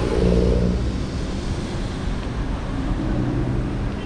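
Wind rumble on the microphone of a moving bicycle, with a motor vehicle's engine running nearby, loudest in the first second and again near the end.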